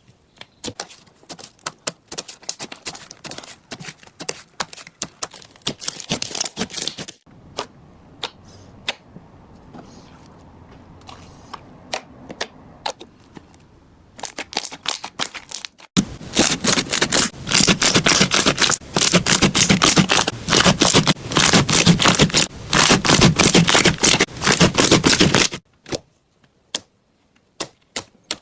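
Slime being squeezed, poked and stretched by hand, making rapid sticky clicks and crackles. The sound goes softer and sparser for a few seconds in the middle, then comes back as a loud, dense crackling run before thinning out to scattered clicks.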